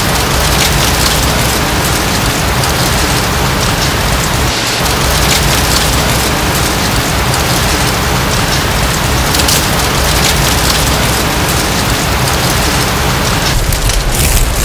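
Dry autumn leaves falling, a dense, steady pattering rustle much like rain. A low rumble comes in near the end.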